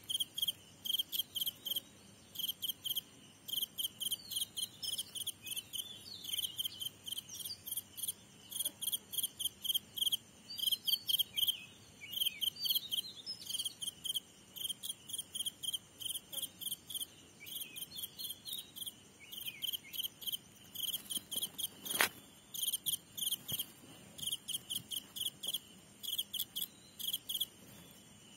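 Insects chirping in short pulsed bursts, about two or three chirps a second, repeated steadily and high-pitched. One sharp click cuts through about three-quarters of the way in.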